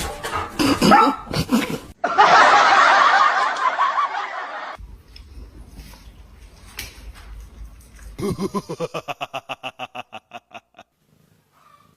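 Laughter: a rapid string of short pulsed laughs that fades out, after a loud stretch of hissing noise in the first few seconds.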